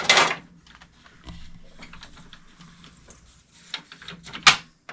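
Rustling and light clicking of a stiff, long-coiled USB cable being handled and connected at the back of an HP LaserJet 1022 printer, with a loud rustle at the start as hair brushes the microphone and a single sharp click about four and a half seconds in.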